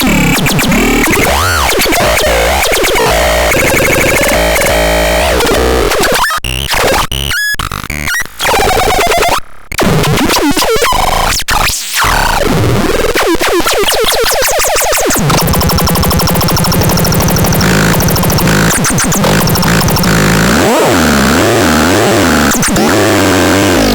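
Synthesizer making harsh, noisy electronic tones with sweeping pitch glides. The sound drops out briefly several times in the middle, then turns into a buzzing pulse before the sweeps return.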